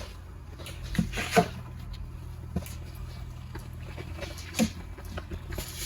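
A few short sharp clicks and taps from peeling and handling an onion with a knife: two close together about a second in, then single ones near the middle. A steady low hum runs underneath.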